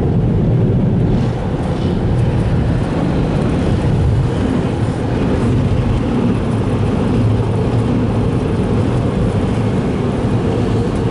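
Automatic car wash air dryer blowers running steadily, a loud even rush of air heard from inside the car's cabin.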